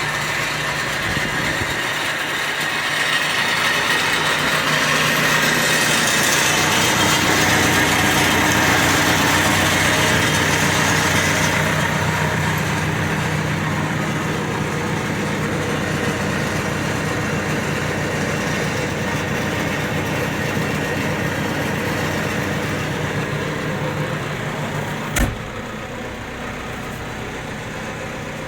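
Terex 860 backhoe loader's diesel engine running steadily at idle. It grows a little louder for several seconds, then settles. A single sharp click comes near the end, after which it runs a little quieter.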